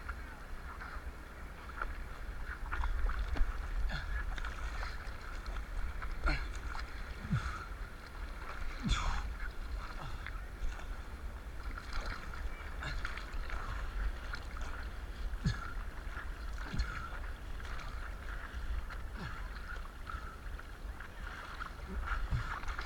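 Ocean water sloshing and splashing in irregular short bursts over a steady low rumble of wind on the microphone.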